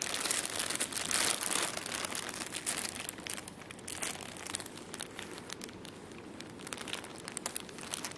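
Plastic sheeting crinkling and crackling as a cat shifts about on it. It is louder for the first two seconds or so, then thins to fainter scattered crackles.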